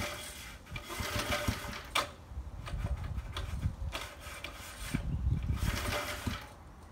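Recoil starter of a Scott Bonnar Model 38 lawn edger's small petrol engine pulled twice, each pull a whirr of about a second and a half as the engine turns over. The engine does not catch and run.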